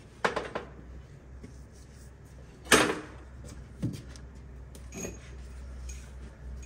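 Metal-on-metal clanks and knocks from work on the engine: two sharp ones just after the start, the loudest about three seconds in, and lighter ones later, over a steady low hum.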